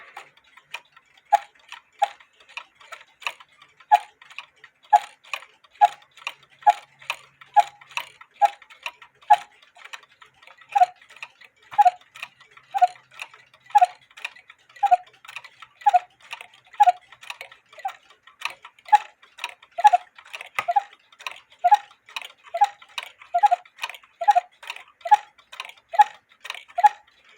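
Austrian quarter-hour cuckoo clock's pendulum movement ticking steadily, about two evenly spaced ticks a second: the clock running in beat.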